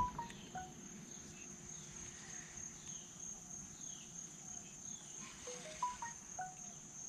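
Insects chirping in a steady, high-pitched pulsing chorus. A short phrase of clear notes that rise and then fall comes just at the start and again about five and a half seconds in.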